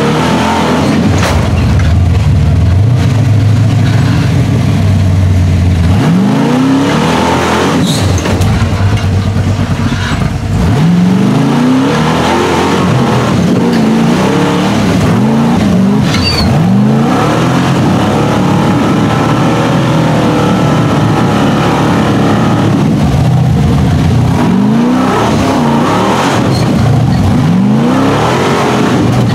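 Big-block V8 engine of a custom rock-crawling truck on Rockwell axles, revved hard again and again as it climbs a rocky trail: loud throughout, with many short rising sweeps in pitch, one every second or two.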